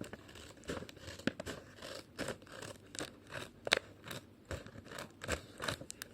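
Plastic blind-bag packaging being handled and opened: a quick, irregular run of crinkles, crackles and tearing clicks.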